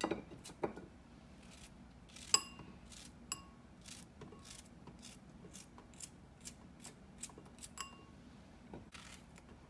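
Knife slicing through a yellow summer squash held in the hand, a crisp snick with each cut about twice a second, the rounds dropping into a ceramic bowl. A few of the strikes ring with a short clink, the loudest a little over two seconds in.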